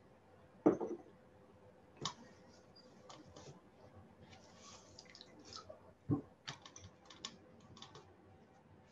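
Faint clicks and small knocks as a sponge is pressed and dabbed against the back of a wooden papermaking mold, soaking water out of a freshly formed sheet of handmade paper. There is a louder thump about a second in and a low thud around six seconds in.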